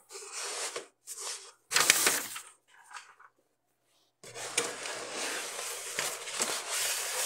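Rustling and scraping handling noises in several short bursts, the loudest just before two seconds in, then a steadier rustle through the second half.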